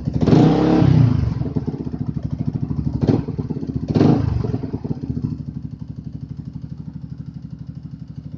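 Older Yamaha R15's single-cylinder four-stroke engine and exhaust idling with an even pulse. The throttle is blipped three times: a rev of about a second at the start, then two short blips about three and four seconds in, before it settles back to idle.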